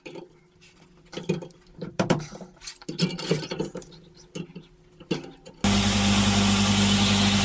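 Scattered light metal clicks and knocks of a steel coil spring being handled and bent. About five and a half seconds in, a power grinder starts suddenly and runs loud and steady, an even hiss over a low hum, grinding the spring's metal.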